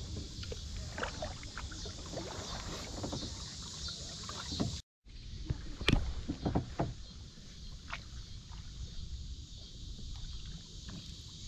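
Water lapping and splashing around a small boat moving along a river, with scattered drips and knocks and wind rumbling on the microphone. The sound breaks off for a moment near the middle.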